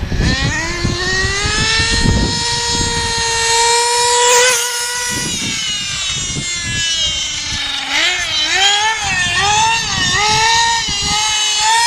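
Nitro RC buggy engine running at high revs, its pitch climbing steadily over the first few seconds, then dropping away about five seconds in. From about eight seconds on, the pitch rises and falls in quick swells as the throttle is pulsed on and off.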